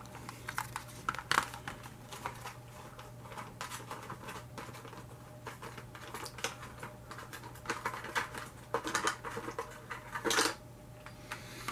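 Plastic slot-car packaging being opened by hand: a string of small clicks, taps and rustles, with a couple of louder scrapes near the end.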